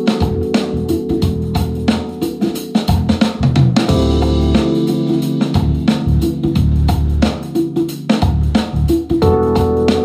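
Backing-track music: a drum kit keeping a steady beat under sustained organ-like keyboard chords.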